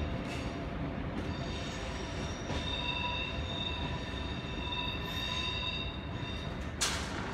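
A TER electric train moving away on curved track, its wheels squealing with several high steady tones that swell and fade over a low rolling rumble. A sharp click comes near the end.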